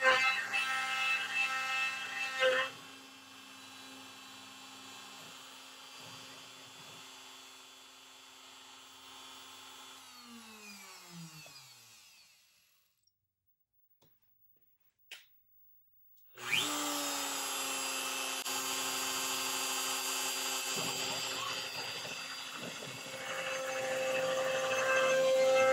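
CNC router spindle cutting wood with a steady whine, loud for the first couple of seconds and then quieter, before it winds down with falling pitch and stops around the middle. After a few seconds of silence the spindle runs again, steady, and grows louder near the end as the bit starts a roughing pass into a new blank.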